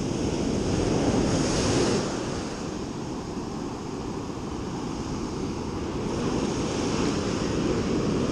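Ocean surf breaking and washing up a sandy beach, with wind rumbling on the microphone. The surf swells louder about a second in and again toward the end.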